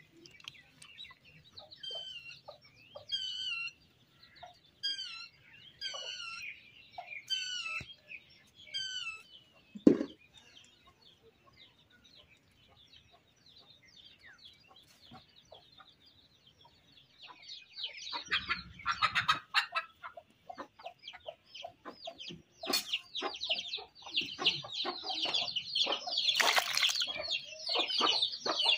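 Chickens clucking and calling, a short falling call about once a second. A single low thump comes about ten seconds in. From about eighteen seconds there is a busier stretch of dense chirps and light clatter.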